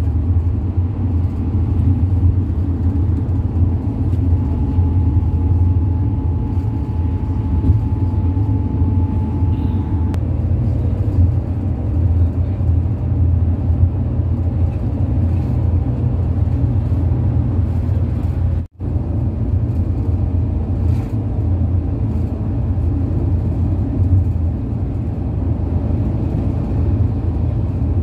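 Steady low road rumble heard from inside a vehicle travelling at speed on a highway, with a faint steady whine over it through the first half. The sound drops out for a split second about two-thirds of the way through.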